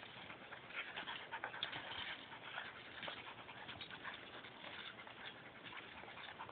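A pit bull and a chocolate lab–pit bull puppy play-fighting, scuffling on asphalt with many quick short clicks and scrapes.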